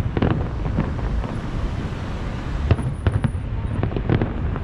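Distant aerial fireworks: shell bursts booming and cracking in an irregular series over a steady low rumble.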